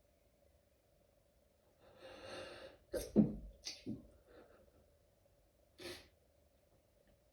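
A person's stifled sneeze. A breathy intake builds for about a second, then a sharp, held-in sneeze bursts out about three seconds in, followed quickly by two smaller bursts. A short breath comes near the end.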